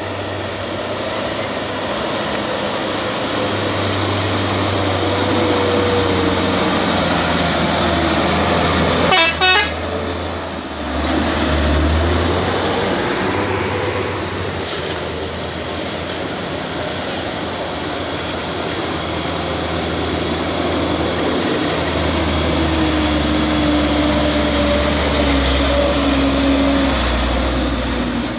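Truck engines running under load as trucks work up a steep, rough climb, with a horn tooting. A brief, loud, sharp burst about nine seconds in is the loudest moment.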